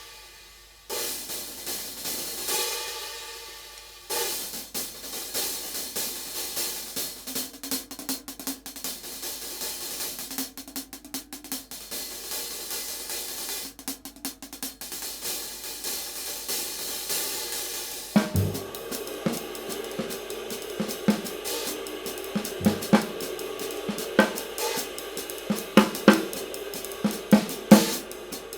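Handmade 16-inch paper-thin B20 bronze hi-hat cymbals being played: a few strikes left to ring, then quick steady strokes. About eighteen seconds in, a drum kit joins with bass drum and snare hits in a groove.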